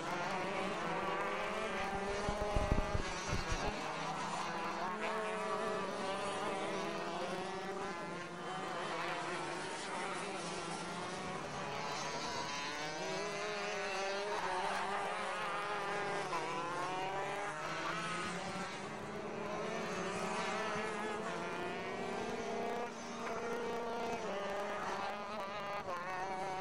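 Several two-stroke racing kart engines buzzing around the circuit, their overlapping pitches rising and falling as the karts accelerate and brake through the corners. A brief low rumble comes about three seconds in.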